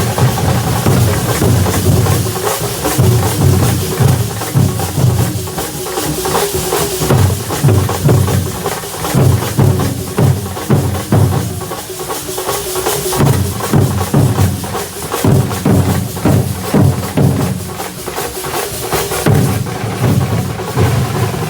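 Drum-led percussion playing a fast, continuous rhythm of rapid strokes with heavy low beats, loud throughout.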